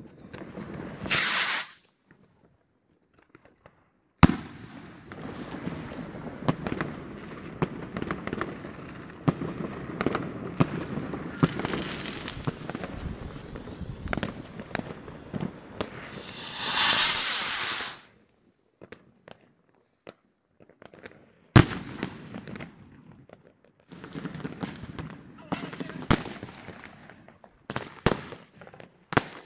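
Fireworks going off. Two rockets whoosh up, about a second in and again past the middle. There are two sharp bangs, one about four seconds in and a louder one later, and long stretches of dense crackling and popping follow each.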